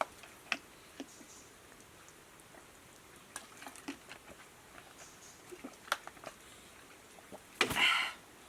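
Scattered light clicks and rustles of small objects being handled, then one short, loud, breathy burst about three quarters of the way through.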